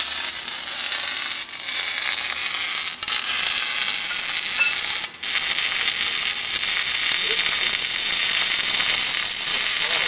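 Electric arc welding on a steel tube chassis: a steady, loud crackling sizzle from the arc, with a short break about five seconds in.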